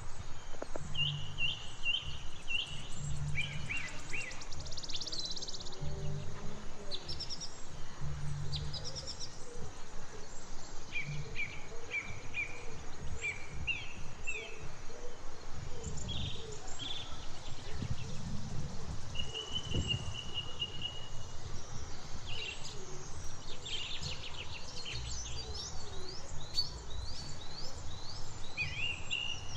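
Several songbirds singing and chirping, in quick series of short repeated notes with an occasional held whistle, over a low uneven rumble of background noise.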